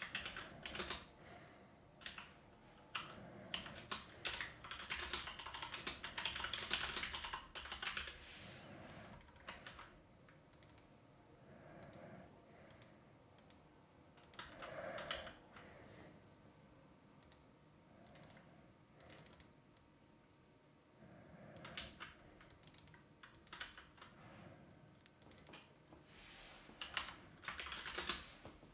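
Typing on a computer keyboard in quick runs of keystrokes. The runs are densest over the first several seconds, then thin to scattered taps, and pick up again in two more bursts near the end.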